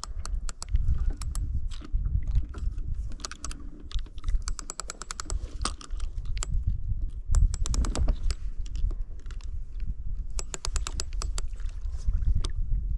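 Multiplier trolling reel being cranked to bring in a hooked fish, its mechanism giving runs of rapid clicks, over a low rumble.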